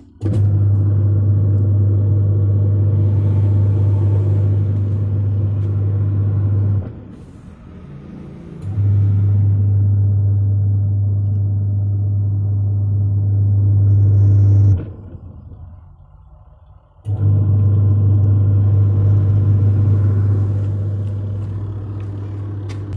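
Samsung washing machine's motor humming steadily in three runs of about six seconds each, stopping for about two seconds between runs.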